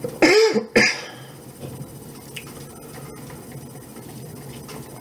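A man coughs twice in quick succession into his fist, near the start.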